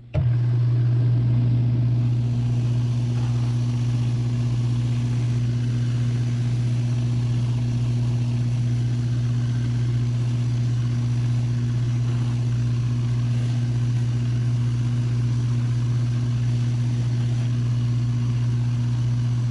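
Cobbler's shoe finishing machine running, its electric motor humming steadily as it spins the buffing wheels that a leather boot upper is being buffed against. It starts up abruptly at the outset and stays level.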